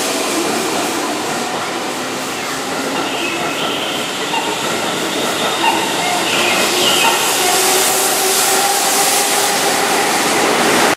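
Keihan electric commuter train running along the platform: a steady rumble of wheels on rail with a faint motor whine.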